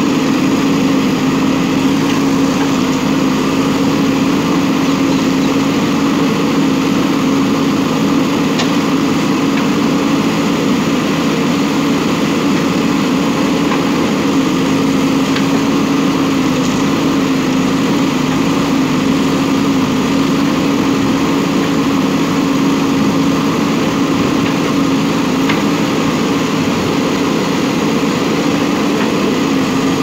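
JCB backhoe loader's diesel engine running at a steady speed, a constant hum that neither revs up nor drops, while the backhoe arm digs soil.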